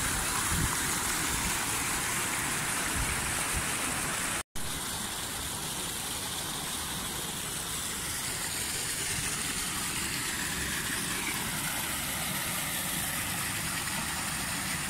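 Steady rushing noise that cuts out for an instant about four and a half seconds in.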